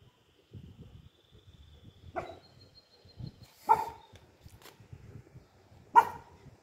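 Small Pomeranian puppy barking three short times, spread over a few seconds, the last bark the loudest.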